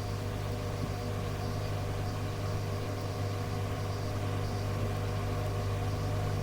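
Steady electrical hum with a ladder of fixed tones over faint hiss on an airband radio channel with no speech, the sound of an open channel between transmissions.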